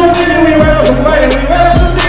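Loud hip hop music: deep 808 bass notes that slide downward, about once every second, under hi-hat ticks and a held, wavering melody line.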